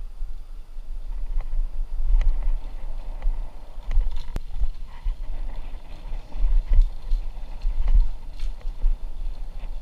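Mountain bike rolling fast over a bumpy dirt singletrack, heard from a camera mounted on the rider: a steady low rumble of trail vibration and air rushing past, with sharp knocks and rattles from the bike at irregular moments as it hits bumps.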